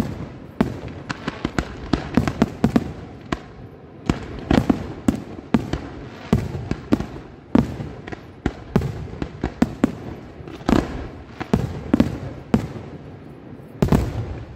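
Fireworks display: aerial shells bursting in rapid, irregular succession, several sharp bangs a second, with a loud burst near the end.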